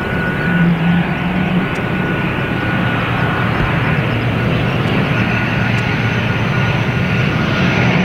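ATR 42-600 twin turboprop on final approach and flare, its engines and propellers giving a steady, loud drone with a constant low hum and a thin steady whine above it.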